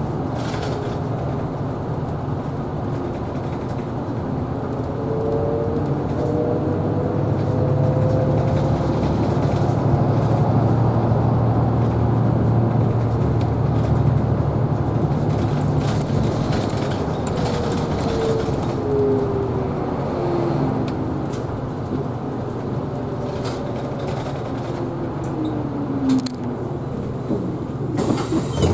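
Isuzu Erga Hybrid city bus running, heard from inside: a steady low drone, with a whine that rises as the bus gathers speed and later falls as it slows. A short hiss comes near the end.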